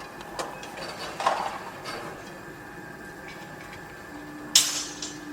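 Construction site noise: scattered metal clanks and knocks over a steady machine hum, one ringing clank just over a second in and a loud sharp bang about four and a half seconds in.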